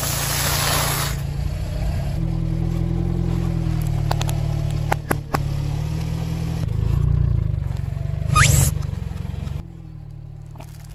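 Car engine running low and steady while a tyre rolls slowly over soft and crunchy things. There is a burst of crunching near the start as puffed corn snacks are crushed, a few sharp clicks midway, and a short rising squeal with a sudden loud burst about eight seconds in as mesh stress balls are squashed.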